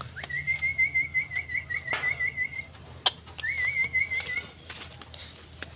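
A high, wavering whistle held for about two seconds, then a shorter one a moment later, with a few sharp clicks.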